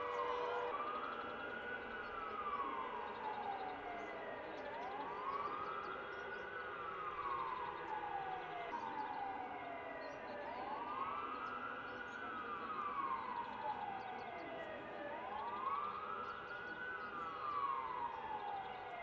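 Air-raid siren wailing, rising and falling about every five and a half seconds, sounded for a national moment of silence in mourning. Steady held horn tones from cars and trains sound beneath it.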